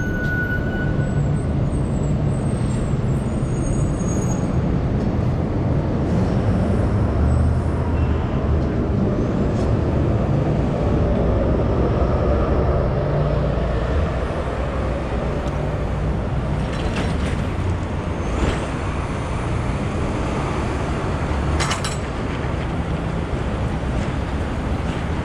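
Street traffic noise: the steady rumble of passing cars, trucks and buses, with a few brief sharp sounds a few seconds before the end.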